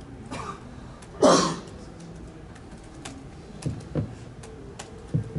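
A short, loud burst of noise about a second in, then a few soft knocks and bumps from a hand-held microphone as it is passed from one person to another, over quiet room tone.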